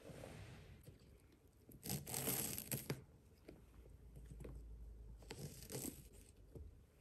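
Fabric ribbon being pulled loose from a cardboard gift box: soft rustling and scraping in two short bursts, about two seconds in and again about five seconds in.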